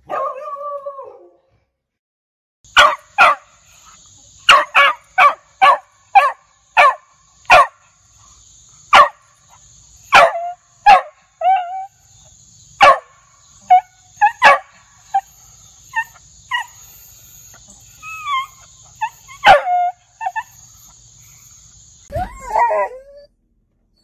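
Beagle barking: short, sharp single barks in an irregular series, some in quick runs of three or four, over a faint steady hiss. It opens on the tail of a falling howl, and near the end a louder, wavering baying bark begins.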